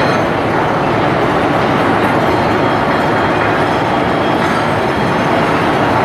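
Electric-furnace charge feeder tipping metal charge into an induction furnace: a loud, steady, dense metallic rattle and rumble without a break.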